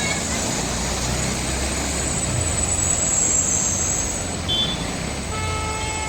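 Road traffic: a vehicle engine rumbling steadily under a constant high-pitched buzz, with a horn sounding near the end.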